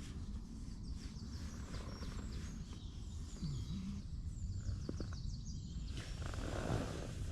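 Woodland birds singing in the morning, with runs of quick high chirps through the middle, over a steady low rumble of outdoor background. A short rustle comes near the end.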